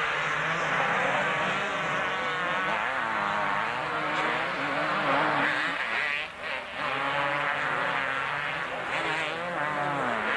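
Several two-stroke motocross bikes racing, their engines revving up and down through the gears in a buzzing, overlapping mix, with a brief drop in loudness about six seconds in.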